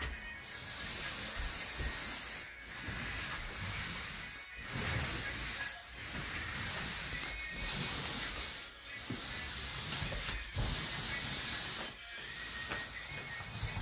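Paint roller on an extension pole rolling paint across a ceiling: a hissing sound in repeated strokes of about one to two seconds each, with short breaks between them.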